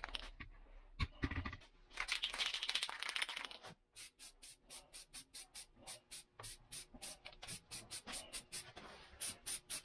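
A thump, then a couple of seconds of rustling, scraping handling noise; then an aerosol spray paint can being shaken, its mixing ball clacking in a quick, even rattle of about five clacks a second to mix the paint before spraying.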